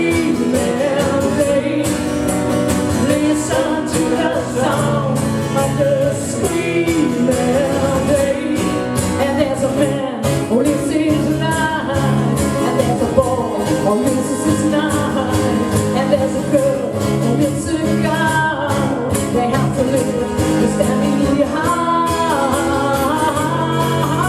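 Acoustic trio playing a rock song live, acoustic guitar with a wavering melody line over it and no sung words.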